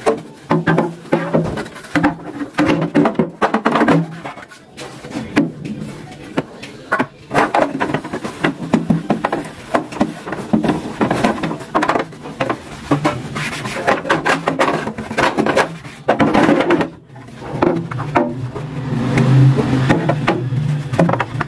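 Irregular knocks, clicks and clatter of refrigerator drawers and shelves being handled and set down, with a low hum coming and going behind them.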